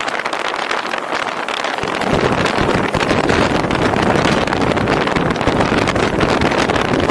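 Noise of a car driving at speed, with wind buffeting the microphone. About two seconds in, a deeper rumble comes in and the noise grows louder.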